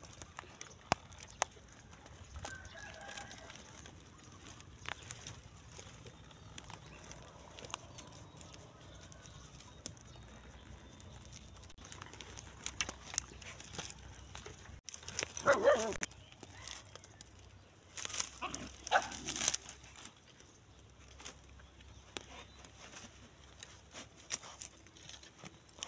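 Two loud animal calls, each lasting about a second, a little past halfway, over faint rustling and scattered clicks.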